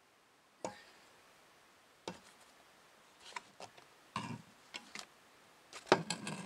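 Handling noises while the split alloy crankcase half and the camera are moved about: sharp knocks and clicks. They are sparse at first and bunch together later, the loudest about six seconds in.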